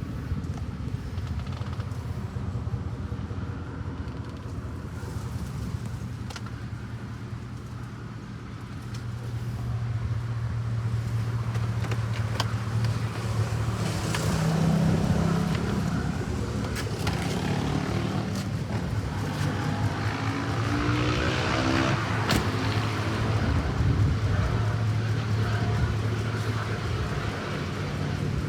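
2004 Chevy Avalanche's V8 engine running steadily, growing louder about a third of the way in, with its pitch shifting up and down about two-thirds of the way through.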